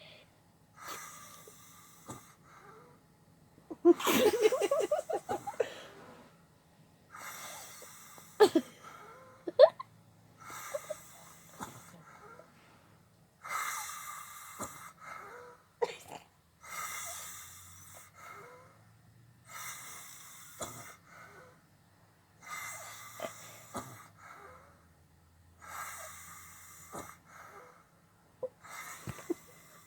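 Sleeper snoring: wheezy, hissing breaths about one every three seconds, the loudest of them, about four seconds in, rough and pitched.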